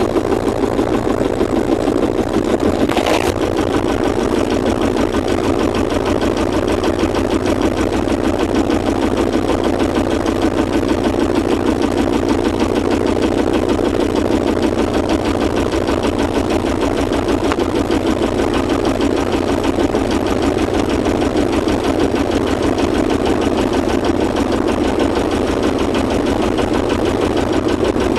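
Sailboat's engine running steadily close to the microphone, with a fast, even beat. A brief click about three seconds in.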